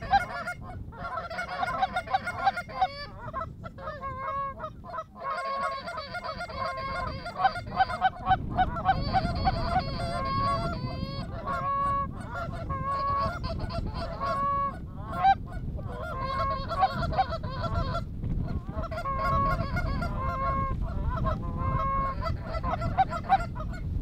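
Rapid, repeated goose honks and clucks run almost without a break, with a few short pauses. A low wind rumble on the microphone comes in about eight seconds in and stays.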